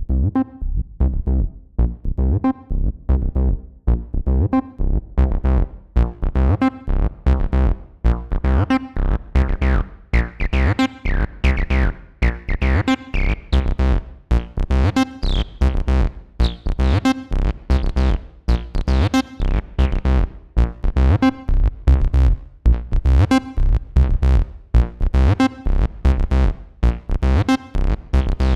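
Behringer TD-3-MO analog bass synthesizer playing a sequenced acid bassline of short, fast repeating notes. About a third of the way in, its resonant filter sweeps open, so the notes turn brighter and squelchy.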